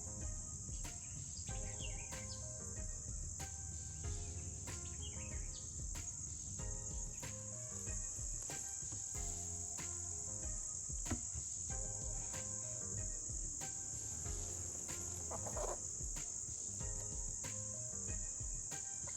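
Steady, high-pitched chorus of insects such as crickets, with soft background music with a steady beat underneath.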